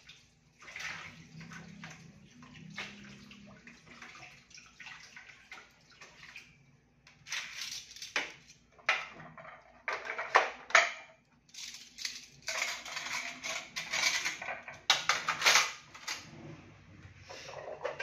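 Dishes being washed at a kitchen sink: tap water running and splashing on and off, with plastic bowls and dishes knocking together. It is fainter for the first several seconds and louder with sharper clatters in the second half.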